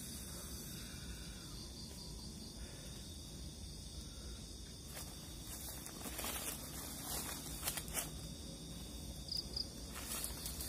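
Night insects chirping steadily in undergrowth. From about halfway through come several short rustles of leaves and brushing noises close by.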